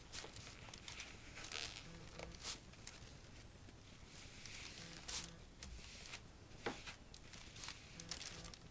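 Paper towel rubbing and rustling as it wipes the last liquid residue out of a small electric melting pot: faint, scattered scratchy swishes.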